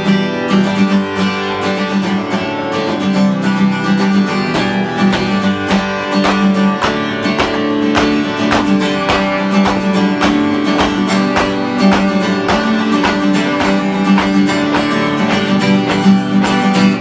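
Acoustic guitar strummed in a steady, even rhythm: the instrumental introduction of a song.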